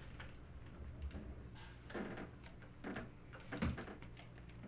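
A few faint, scattered knocks and clicks over a low steady electrical hum.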